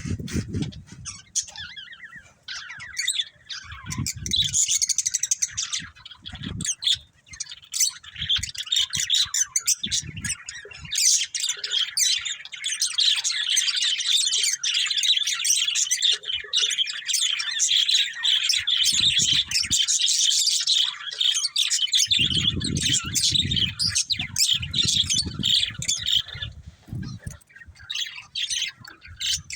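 Pet budgerigars chirping and chattering, with scattered calls at first and an unbroken run of rapid chatter from about ten seconds in until near the end. Low thuds break in now and then.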